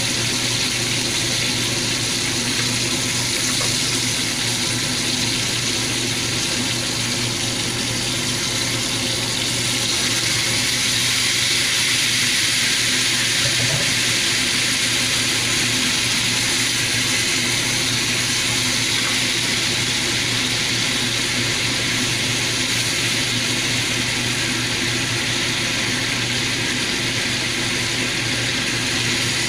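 Beef steaks sizzling in butter in a frying pan: a steady hissing spatter that grows a little louder about ten seconds in.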